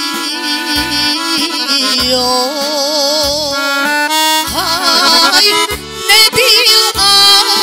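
A woman singing a sevdalinka in ornamented, wavering lines with vibrato, accompanied by an electronic keyboard in an accordion-like voice over a regular bass beat.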